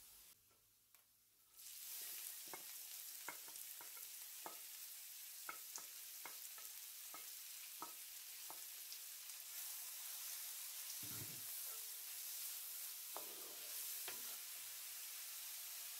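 Minced garlic and chopped onion frying in oil in a cast-iron wok: a steady sizzle that starts a couple of seconds in, with scattered crackling pops. A wooden spoon pushes and stirs the onion, with a dull knock about two-thirds of the way through.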